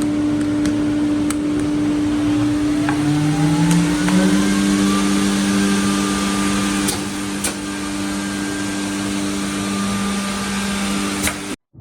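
Motor-driven machinery running with a steady hum over a noisy whir. A second motor speeds up about three seconds in and then holds its pitch. A few sharp clicks sound, and everything stops abruptly just before the end.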